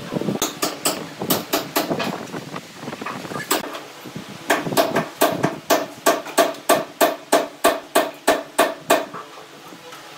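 Hammer blows: a few irregular strikes, then a steady run of about three strikes a second that stops about a second before the end.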